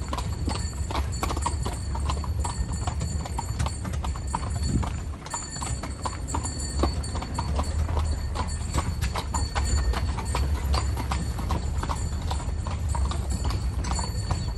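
Hooves of a carriage horse clip-clopping steadily on the road, a quick run of sharp strikes over a steady low rumble.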